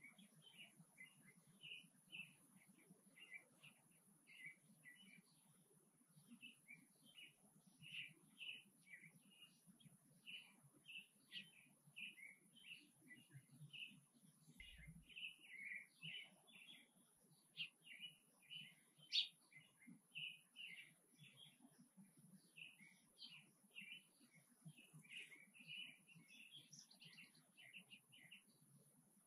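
Small birds chirping, a steady stream of short, high chirps several times a second, faint overall, with one louder chirp about two-thirds of the way through.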